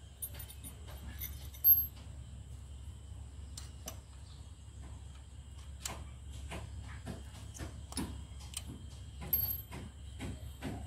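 Irregular light metallic clicks and clinks from hands and a tool working on a brush cutter engine's centrifugal clutch, with two louder clanks, one near the start and one about nine seconds in.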